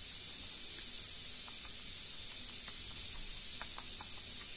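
Steady high hiss with faint, scattered light taps of a pen dotting along a paper template's lines onto craft foam.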